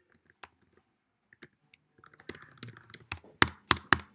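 Computer keyboard typing: light, scattered keystrokes, then a quicker run of clicks, ending in several much louder, sharp strikes about three a second, the Enter key hit repeatedly to add blank command prompts.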